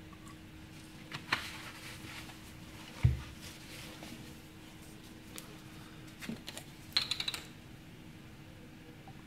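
Lab-bench handling: a bottle set down on the bench with a single thump about three seconds in, then a quick run of sharp plastic clicks near the end as the screw cap of a plastic centrifuge tube is twisted off, over a steady faint hum.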